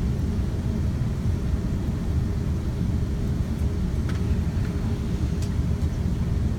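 Steady low rumble inside the cabin of an Airbus A380 taxiing after landing, with a few faint clicks in the second half.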